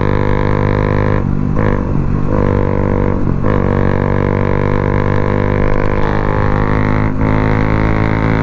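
Motorcycle engine breathing through an aftermarket Akrapovic exhaust with the dB killer removed, pulling hard under throttle in a steady, loud drone. The drone dips briefly three or four times.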